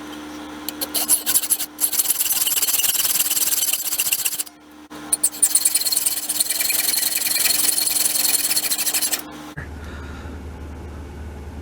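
A small power saw running with a steady motor hum and cutting through the turned metal rear handguard retainer ring, in two long gritty passes with a short break between them; the motor stops near the end.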